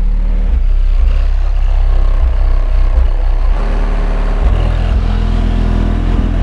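Car sound system playing music very loud, with heavy bass.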